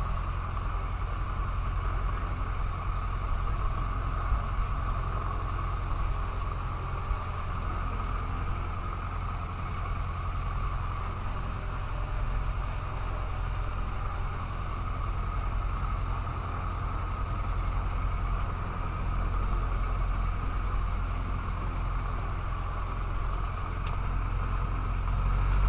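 Cessna 150's four-cylinder Continental O-200 engine and propeller running steadily at low power, heard inside the cabin.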